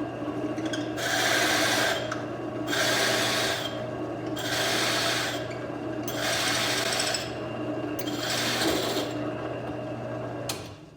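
Drill press motor running steadily while the bit cuts into wood in five bursts of about a second each, as the bit is brought down and raised again in turn; the motor shuts off near the end.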